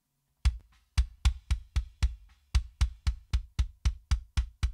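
Soloed close-miked kick drum track from a screamo rock mix, played back after processing. Hits come about four a second, each a sharp attack with a short low thump that stops dead, because the sustain and bleed have been cut away by a transient designer and a gate.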